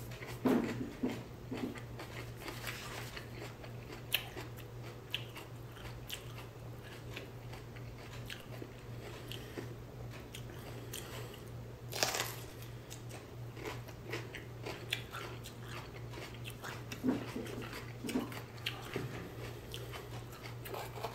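A person chewing a mouthful of raw, thick-walled Stocky Golden Roaster sweet pepper, with crisp scattered crunches. One sharper, louder noise comes about halfway through.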